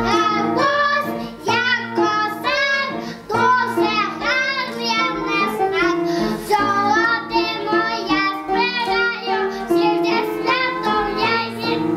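A young child singing a song solo over an instrumental backing track, the voice carrying the tune above steady held accompaniment notes.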